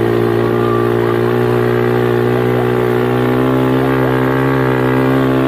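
ATV engine running under way at steady, held revs.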